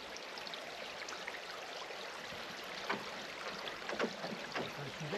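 Steady trickling and lapping of river water at the bank around a rowing shell, with a few light knocks near the end.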